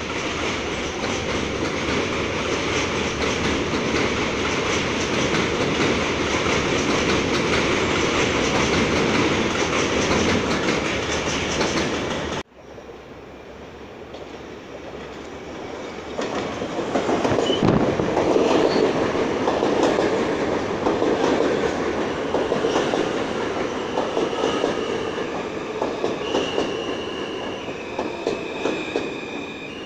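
New York City subway train running past on the elevated tracks with a steady rumble and clickety-clack. After a sudden cut about twelve seconds in, an R160A subway train rolls into the station, louder as it nears, its wheels squealing in high, held tones as it slows to a stop near the end.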